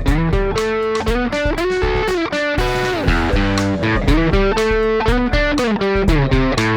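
Electric guitar played through an Xotic EP Booster pedal into a Vox MV50 AC amp, with a lightly driven tone. A run of picked notes with several string bends.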